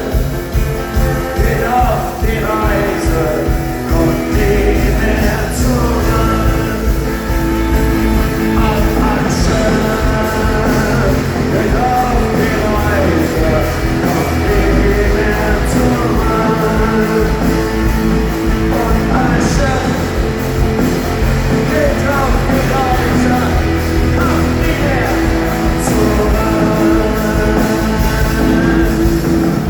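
Rock band playing live: a singer over electric guitar, bass and drums with a steady beat.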